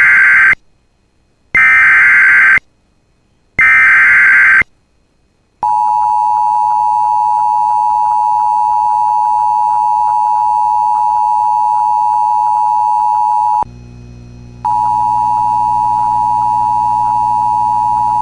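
Emergency Alert System header: three one-second bursts of SAME digital data tones, evenly spaced, followed by a long steady attention tone that drops out briefly near the middle before resuming.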